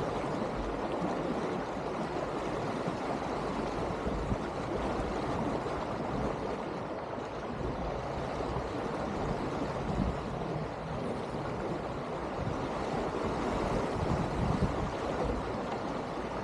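Steady rush of water along the hull and wake of an Elan 310 sailing yacht under way at speed, with a low, gusty rumble of wind on the microphone.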